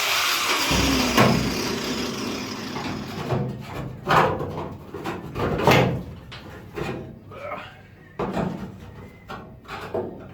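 A loud hiss that fades over the first few seconds with a falling whine, then irregular knocks and clunks of the steel body panels of a Ford Cortina Mk V being worked loose after cutting.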